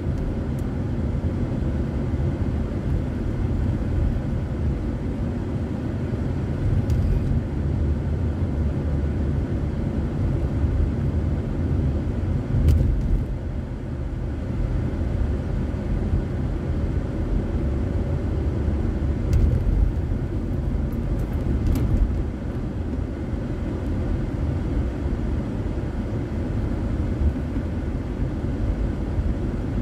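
Steady low rumble of a car's engine and tyres on the road, heard from inside the cabin by a dashboard recorder, with a few brief knocks along the way.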